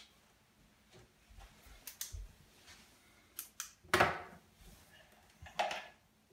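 Scattered clicks and knocks of small plastic items, a repair-kit mixing cup and a flashlight, being handled and set down on an acrylic bathtub, the loudest knock about four seconds in.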